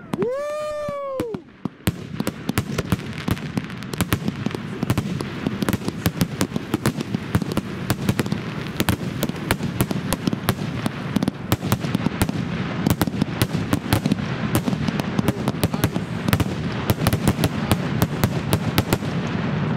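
Fireworks crackle: streams of crackling stars popping in a dense, rapid run of small sharp reports, starting about two seconds in and keeping on. It is preceded by a brief pitched tone that rises and then falls.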